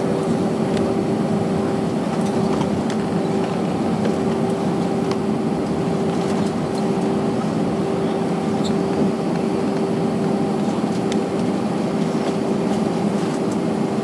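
Steady cabin noise of an Airbus A321-214 taxiing, heard from inside the cabin: the CFM56 engines' low rumble at taxi power with a constant, unchanging hum.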